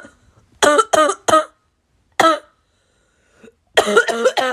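A person coughing: three quick coughs, a single cough about a second later, then a rapid string of coughs near the end.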